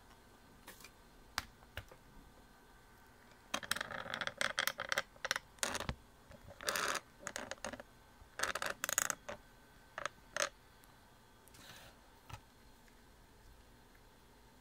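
Handling noise from a Canon SX50 HS camera being moved and set down on a desk: a run of clicks, taps and short scrapes that starts a few seconds in and stops about ten seconds in, with a few faint clicks after.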